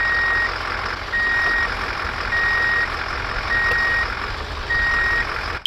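A truck's reversing alarm beeping five times, a steady high beep of about half a second repeating a little more than once a second, over a low engine rumble and hiss. It cuts off abruptly near the end.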